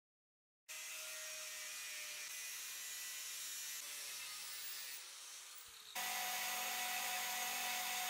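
An angle grinder's abrasive disc cutting into a small steel block, a steady high grinding hiss that starts suddenly just under a second in and sags around five seconds. At about six seconds a belt grinder takes over, louder, its running hum carrying a few steady tones under the hiss of the belt grinding the steel.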